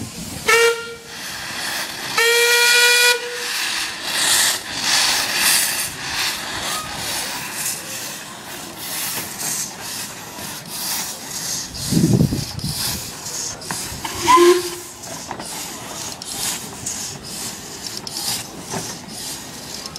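Narrow-gauge steam locomotive whistle blown twice: a short toot, then a longer, louder blast about two seconds in. Steam then hisses and a small tank engine's exhaust beats steadily as it moves, with a low thump about twelve seconds in and a brief shrill sound a couple of seconds later.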